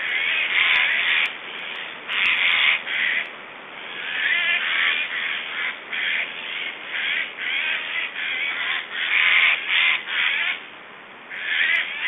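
Black stork nestlings calling: a string of harsh, rasping calls of about half a second to a second each, coming in quick succession with short gaps and a brief pause near the end.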